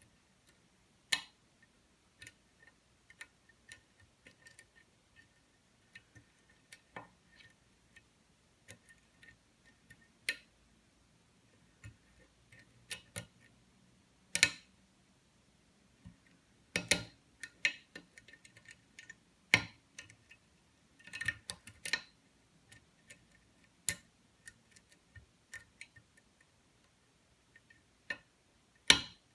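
Sparse, irregular sharp clicks and ticks of a lock pick working the pin stacks of a pin-tumbler challenge lock under tension. Some clicks come singly, a few in quick clusters.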